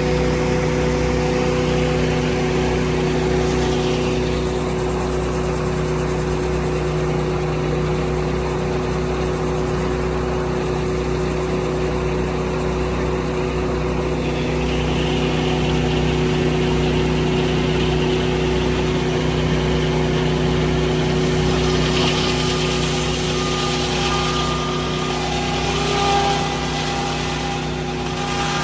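Sawmill's engine, just fired up, running steadily at a constant pitch.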